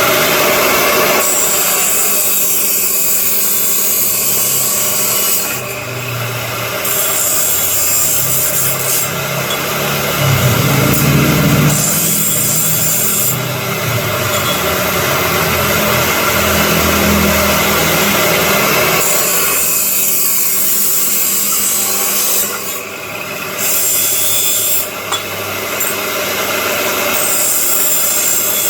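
Maktec abrasive cut-off saw for steel running and cutting, a loud continuous grinding with a high whine that fades and returns several times.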